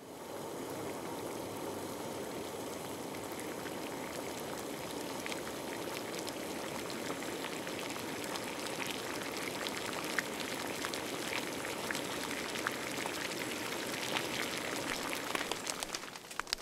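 Dense, rain-like rushing noise with scattered crackles, part of an experimental sound art piece. It comes in suddenly, holds steady with more crackling toward the later part, and drops away near the end.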